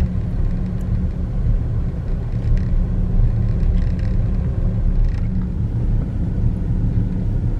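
Car interior road and engine rumble while driving: a steady low drone with tyre noise from the road.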